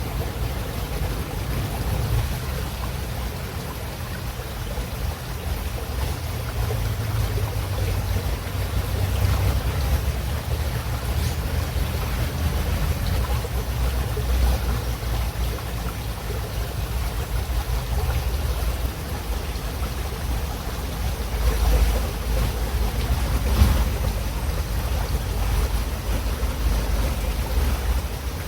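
River water running: a steady rush with a deep low rumble, swelling briefly twice near the end.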